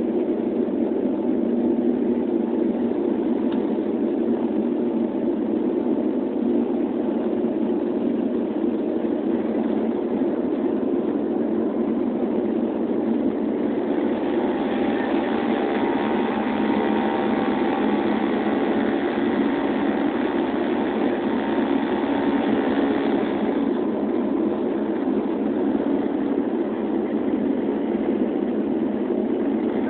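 Steady drone of a Dash 8 twin-turboprop's engines and propellers heard inside the cabin in flight. For about ten seconds in the middle, a brighter, higher-pitched layer joins the drone.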